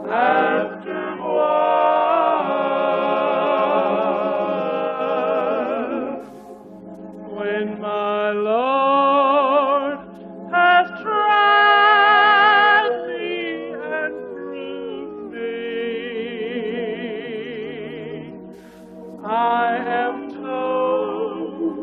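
Slow gospel song in long, held phrases with a strong vibrato, no clear words.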